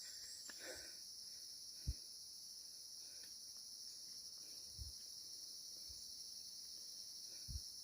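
Steady high-pitched insect chorus droning without a break, with a few soft low thumps spaced a couple of seconds apart.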